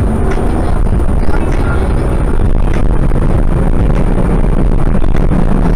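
Road and engine noise inside a moving car's cabin, picked up by a dashcam's microphone as the car moves off through an intersection: a steady low rumble and hiss, growing slightly louder.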